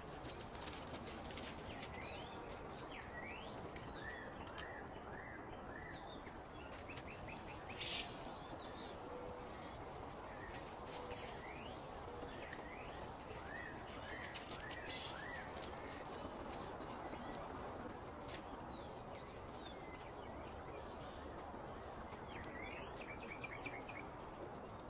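Forest ambience: a steady hiss, with a bird calling in short runs of three to five quick chirps that come back every several seconds. A few faint clicks or taps sound now and then.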